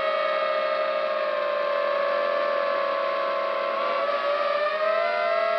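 Quadcopter drone's electric motors and propellers whining steadily, heard close from the camera it carries. About four seconds in the pitch wavers and splits as the motors change speed while the drone manoeuvres, then it steadies again.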